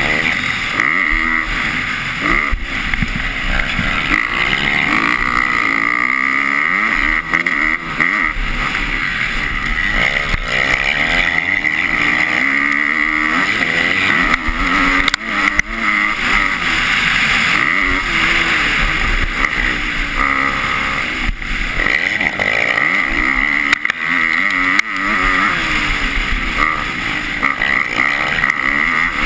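A 250-class motocross bike's engine heard from on board, revving up and down again and again as the rider accelerates and backs off between the bumps and turns, with wind rushing over the microphone.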